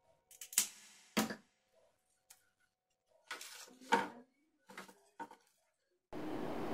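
A string of separate knocks and clatters, as of objects being handled or set down in a small room, some with a short ring. About six seconds in, a steady rushing noise starts abruptly.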